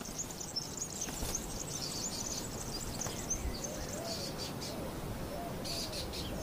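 A faint chorus of small birds chirping and twittering in high, short notes over a soft outdoor background. Lower wavering notes join about halfway through.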